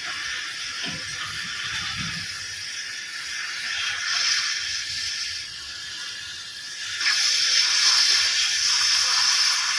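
Electric arc welding on a steel tank manhole: a steady sizzling hiss that grows louder about seven seconds in.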